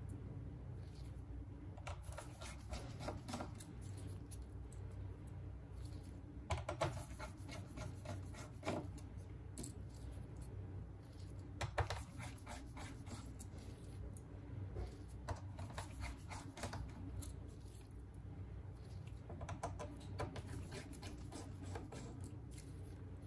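Small hand tools working on an opened smartphone: scattered clicks, taps and short scraping sounds in clusters, the sharpest a little after six seconds and about twelve seconds in, over a steady low hum.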